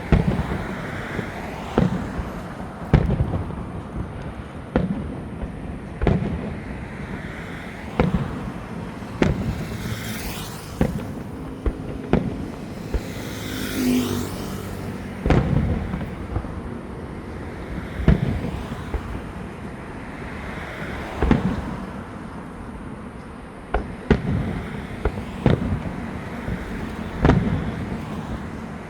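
Fireworks going off in a running display: a sharp bang every second or two, with a couple of longer hissing crackles near the middle.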